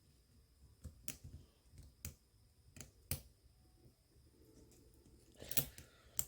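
Sharp clicks and light taps of small iPod parts and case pieces being handled and taken apart, about seven in all, spaced irregularly, with a louder cluster of clicks about five and a half seconds in.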